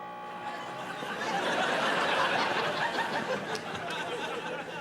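Audience laughing, swelling about a second in and easing off toward the end, over a steady hum that fades in the first second.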